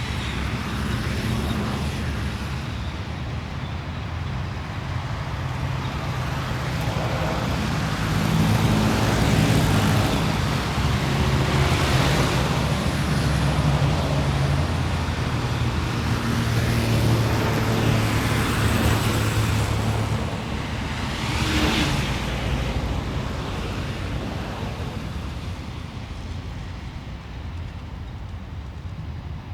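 City street traffic: a steady low rumble of engines, with vehicles passing close twice, their tyre hiss swelling and fading. The traffic grows louder through the middle and eases off near the end.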